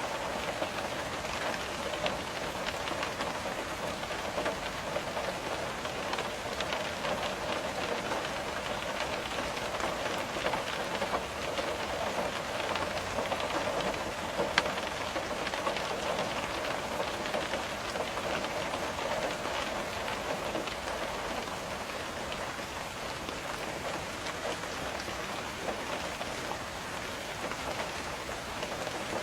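Steady rain with raindrops tapping on a window, many fine drop ticks over an even hiss, and one sharper tick about halfway through.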